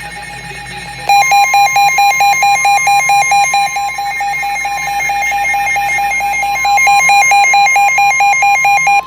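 NOAA Weather Radio receivers sounding a warning alert. About a second in, the broadcast's long steady warning alarm tone starts, with a radio's own rapid alarm beeping over it, about four beeps a second. The alert signals a severe thunderstorm warning.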